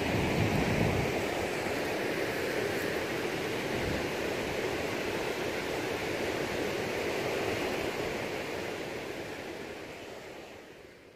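Steady rush of river water, with a brief low rumble about a second in; the sound fades out near the end.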